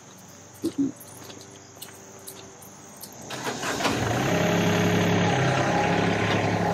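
Sany SY35U mini excavator's diesel engine starting about three seconds in, then running steadily while the hydraulics work the tilt bucket.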